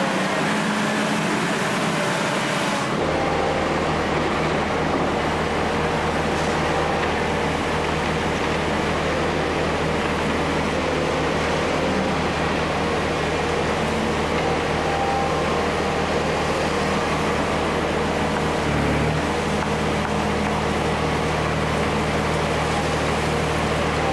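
Diesel engine of a tracked hydraulic excavator running with a steady low drone over a constant hiss; the drone sets in about three seconds in and briefly shifts around nineteen seconds.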